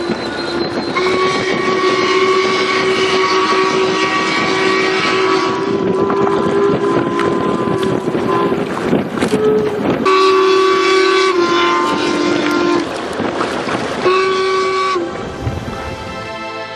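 Paddle steamer's steam whistle sounding a chord of steady tones. One long blast runs for most of the first ten seconds and is followed by two shorter blasts at a different pitch, with a steady hiss underneath.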